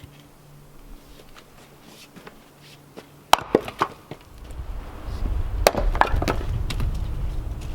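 Wooden knocks and clatter of timber being worked: faint clicks at first, then a few sharp knocks about three seconds in and again near six seconds, over a low rumble that builds in the second half.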